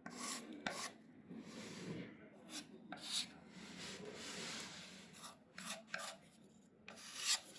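Hand tool scraping and smoothing filler over a surface: a series of short scraping strokes, the loudest near the end.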